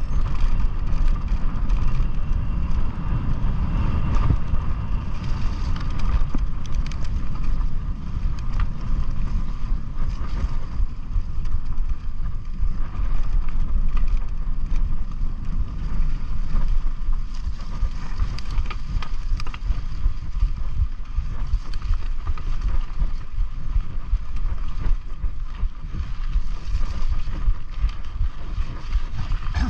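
Wind buffeting the microphone over the rumble of a mountain bike rolling along a dirt trail, with a steady high hum underneath and scattered light ticks.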